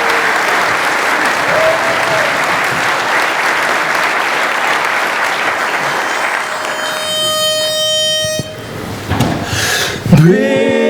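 Audience applause that fades out about six seconds in, then a pitch pipe sounding one steady note for about two seconds to give the quartet its starting pitch. The four male voices come in together about ten seconds in, singing a cappella.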